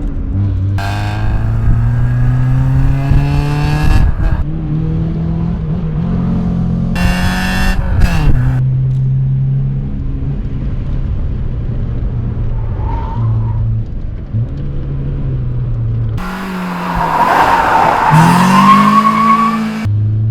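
Honda Civic EG5 four-cylinder petrol engine through an aftermarket exhaust, accelerating with the revs rising, then holding steady revs, in several short passages that cut abruptly from one to the next.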